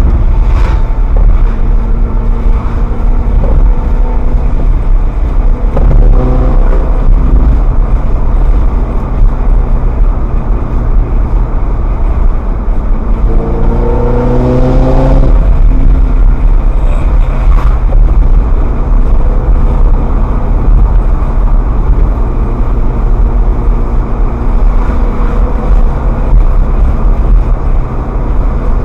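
Ferrari F430's V8 engine running while the car is driven, with a rumble of road noise under it. The engine note rises briefly about six seconds in and again in a longer, stronger acceleration about halfway through.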